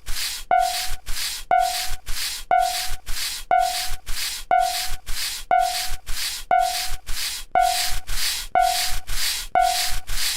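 Stylised level-crossing warning sound: an evenly repeating hissing burst, each with a short tone at its start, about twice a second.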